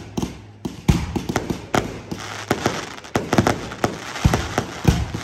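Fireworks display with aerial shells bursting in quick, irregular bangs and crackling. Several heavier deep booms stand out among them.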